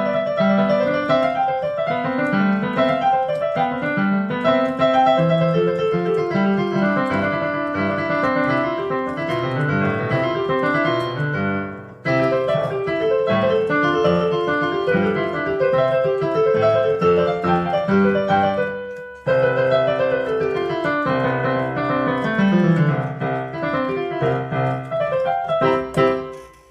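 Solo piano playing a lively piece in quick runs of short notes. It breaks off briefly twice and stops at the end of the piece.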